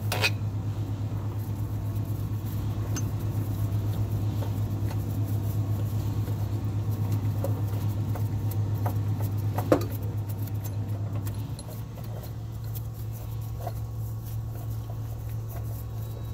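A hand ratchet clicking rapidly as the bolts holding the rear main seal installation tool to the crankshaft are backed out, with a sharp metal clink near the start and another about ten seconds in. A steady low hum runs underneath and drops in level about two-thirds of the way through.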